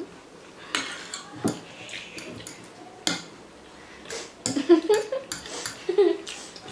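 Metal fork clicking and scraping on a plastic plate of noodles, with mouth noises of eating. Brief muffled vocal sounds come in the second half.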